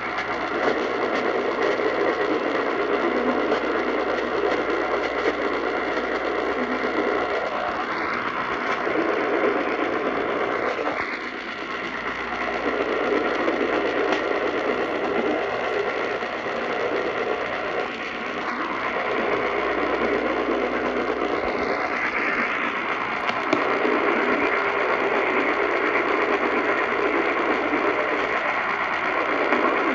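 Radio static from an off-air receiver: a steady hiss of noisy reception with no speech, swelling and fading in its lower part every few seconds.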